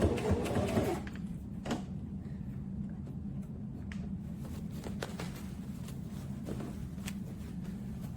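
Brother XM2701S electric sewing machine running and stitching in a rapid rhythmic clatter, stopping about a second in. After that comes a low steady hum with a few light clicks.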